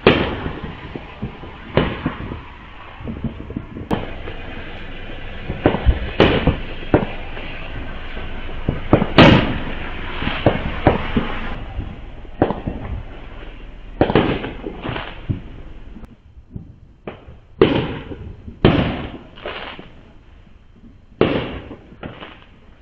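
Consumer fireworks going off around the neighbourhood: about twenty sharp bangs at irregular intervals, some in quick clusters, each with a short echoing tail. The loudest comes about nine seconds in. A continuous din under the bangs drops away after about twelve seconds.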